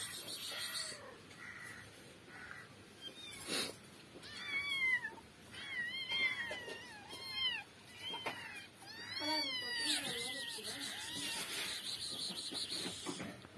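A kitten mewing, about a dozen short, high-pitched mews in quick succession for several seconds while its mother grooms it.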